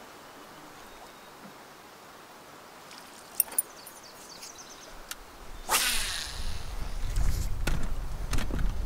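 Faint steady hiss, then two sharp clicks about three and a half seconds in. At about six seconds comes a brief rush of noise, followed by low rumbling of wind and handling noise on the microphone as the camera is swung round.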